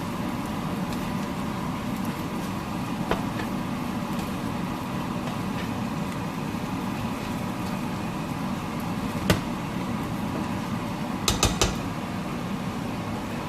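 Steady fan-like hum from the stove area while noodles stir-fry in a pan, with a sharp knock about nine seconds in and three quick knocks near the end, like a utensil striking the pan.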